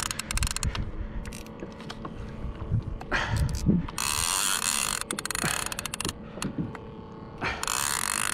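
Spinning fishing reel being cranked under load against a fish, gears whirring with runs of rapid ratchet-like clicking that come and go in bursts.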